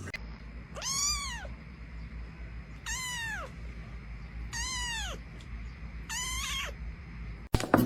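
A cat meowing four times at even intervals, each meow rising and then falling in pitch.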